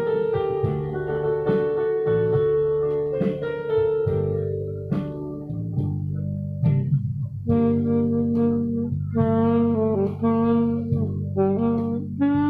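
Instrumental band music: an accompaniment with held notes plays first, then from about halfway through a saxophone and trumpet take up the melody together.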